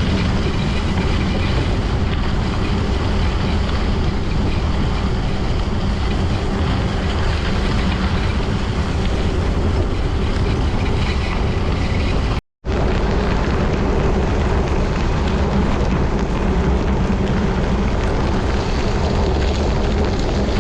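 Steady rush and rumble of wind on the microphone of a camera riding along on a gravel bike, with a brief dropout about twelve seconds in.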